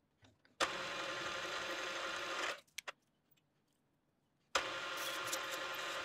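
Milling machine spindle running with a drill in its chuck, drilling holes in a brass blank. It cuts in abruptly about half a second in and stops about 2.5 s in. Two short clicks follow, and it starts again about 4.5 s in.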